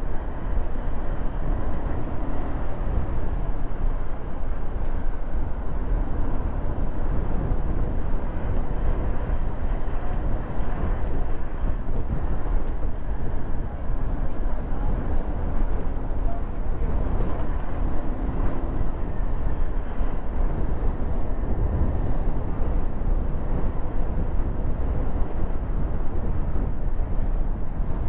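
Steady road and traffic noise of a vehicle driving through city streets: a continuous low rumble that holds at an even level.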